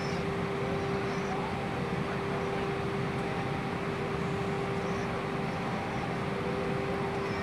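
Steady cabin noise inside an Airbus A320 on descent: engine and airflow noise with a constant hum tone through it.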